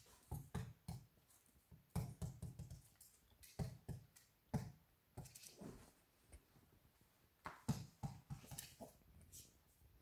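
Quiet, irregular knocks, taps and clicks on a hardwood floor from a Maltese puppy playing with a small toy on a string, its paws and claws scrabbling and the toy striking the boards in scattered clusters.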